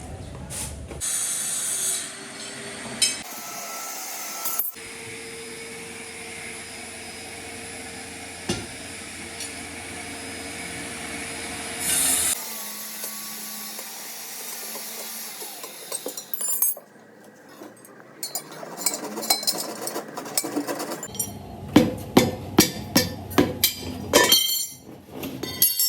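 Hand-tool work on a tyre in a string of short clips: steady scraping and rasping, then a run of about a dozen sharp knocks near the end.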